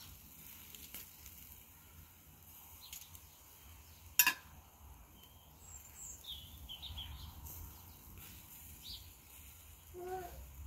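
Outdoor ambience of birds chirping now and then, over a low wind rumble. A single sharp click about four seconds in is the loudest sound.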